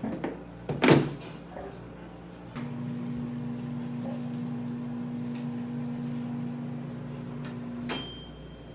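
A sharp click about a second in, then a small appliance motor hums steadily for about five seconds and stops with a short knock near the end.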